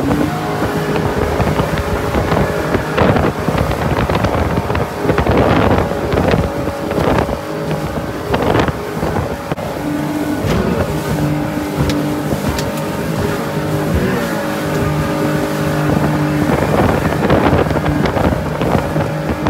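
Sea-Doo jet boat's Rotax 4-TEC engine running under way. Its pitch dips and climbs as the throttle is worked, while the light hull slaps and splashes over choppy waves and wind rushes across the microphone.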